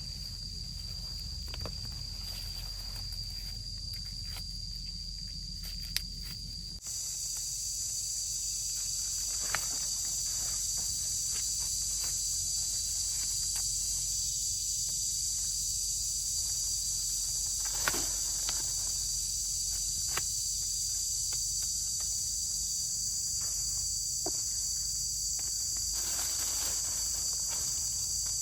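Steady high-pitched insect chorus, a constant chirring drone. It becomes louder and fuller about seven seconds in. A few faint clicks are scattered through it.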